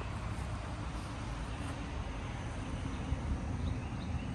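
Steady low outdoor rumble without clear events, with a faint even hiss over it.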